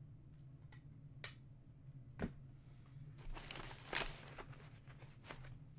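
Trading cards and packs being handled on a table: a few light clicks and taps, a soft thump about two seconds in, and a brief rustle with a sharp click near the middle, over a steady low hum.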